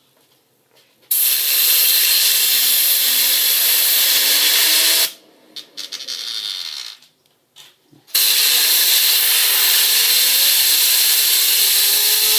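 Compressed air from an air compressor hissing loudly in two long blasts at a fidget spinner, the second starting about 8 seconds in. Under the air, the spinner's whir rises steadily in pitch as it spins up.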